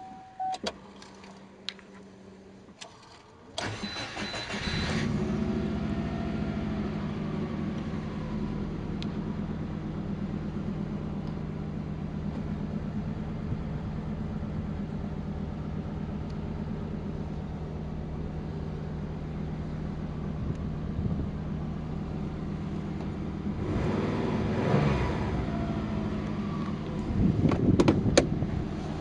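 Subaru Legacy B4 RSK's 2.0-litre twin-turbo flat-four cranked and started about three and a half seconds in, heard from inside the cabin, catching quickly and settling into a steady idle. The engine note swells briefly a few seconds before the end, then a few sharp clicks come as the bonnet release lever is pulled.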